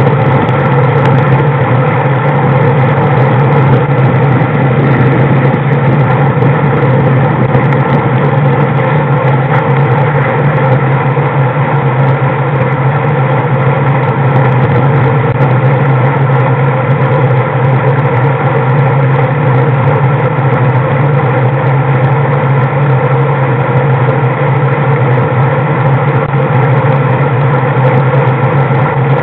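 Engine of the camera-carrying vehicle running steadily while travelling along a road, a constant loud drone at an unchanging pitch.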